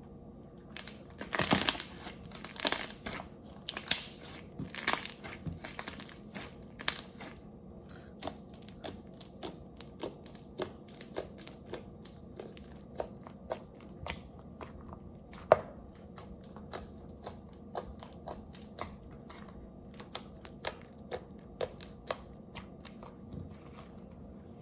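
Clear-glue and Vaseline slime being squeezed and stretched by hand, giving sticky clicks and pops. The clicks come thick and loud for the first several seconds, then lighter and scattered, with one sharp pop about halfway through.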